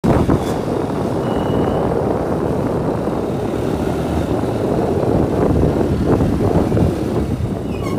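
Steady rush of wind on a microphone moving at speed, with no clear engine tone.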